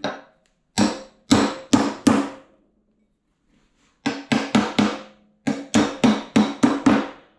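Sharp tool taps on the eye of a steel coilover shock, each with a short metallic ring, seating a spherical bearing and its snap ring. There are five taps over the first two seconds, then after a pause a quicker run of about a dozen, roughly four a second.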